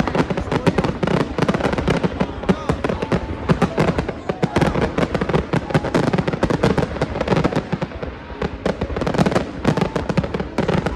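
Fireworks display going off without pause: rapid overlapping bangs and crackles over a continuous low rumble.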